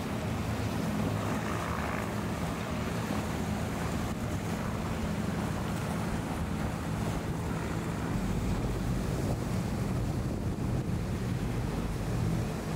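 Powerboat engines droning steadily at speed, first the twin Mercury outboards of a Cruisers Yachts 34, with rushing water from the wake and wind buffeting the microphone. About eight seconds in a deeper engine drone takes over as a larger motor yacht, a Beneteau MC6, runs past.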